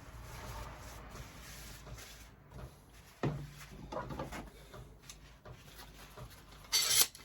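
Handling noises from fitting a clamp to a glued wooden chair. There is a soft rubbing, then a knock about three seconds in and a few lighter knocks, then a short, loud scrape near the end.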